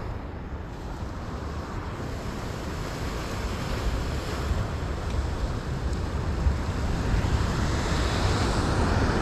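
Sea surf washing over rocks with wind buffeting the microphone, a steady rushing noise heavy in the lows that grows gradually louder.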